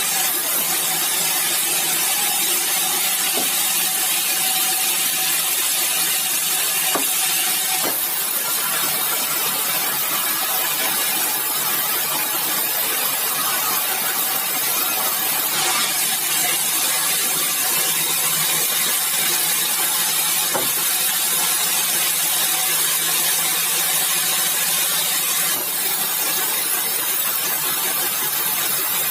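Sawmill machinery running steadily: a constant motor hum under a loud high hiss, with a few short knocks.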